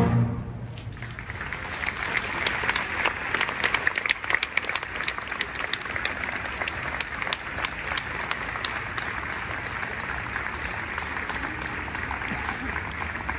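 Audience applauding at the end of a piece by a symphonic wind band. The band's last chord cuts off right at the start, and the clapping builds within a second, is fullest a few seconds in, then carries on steadily.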